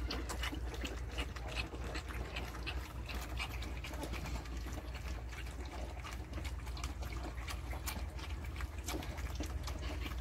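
A litter of 26-day-old German shepherd x Belgian puppies eating together from one shared bowl: a constant patter of small wet lapping smacks and clicks, over a low steady hum.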